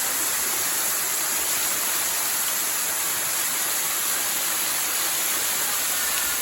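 Waterfall pouring: a steady rushing of falling water.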